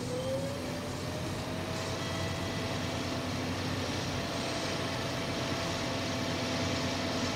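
Sound effect of Thunderbird 1's jet engines in flight: a steady rushing noise with a whine that glides up in pitch over the first second or two and then holds level.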